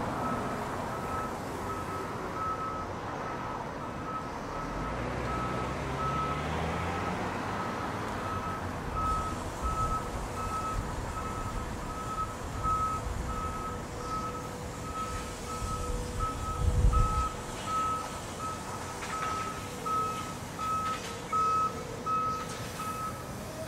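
A steady electronic beeping like a reversing alarm, a little under two beeps a second, stops shortly before the end. Beneath it, a Škoda 14TrSF trolleybus's electric motor whines up in pitch as it pulls away, and there is a low thump about seventeen seconds in.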